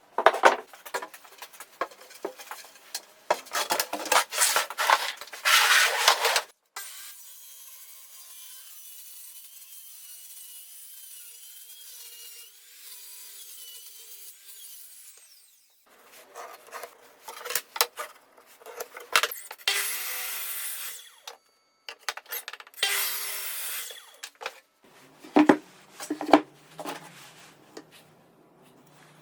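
Wood being worked by hand with a saw or rasp: quick rough scraping strokes, stopping after about six seconds and starting again in shorter bouts later on.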